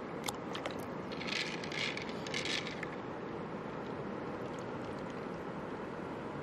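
Pearls clicking and rattling against each other and the shell in an opened freshwater mussel shell as it is handled, with a few single clicks and then a burst of rattling about a second in that lasts about two seconds. Underneath is a steady hiss of shallow running stream water.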